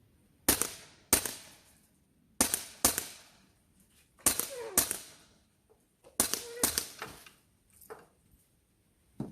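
CO2 blowback air pistol firing a string of about nine shots, sharp cracks that come mostly in quick pairs about half a second apart, the last one weaker.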